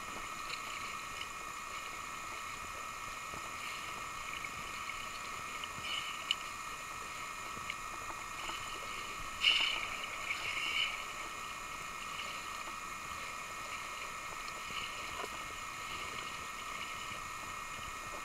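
Sea water lapping and sloshing at the surface, with a brief splash and bubbling about halfway through as a scuba diver submerges.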